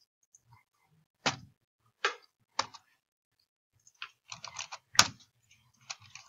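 Computer keyboard typing: a few separate keystrokes in the first few seconds, then a quick run of keystrokes from about four seconds in.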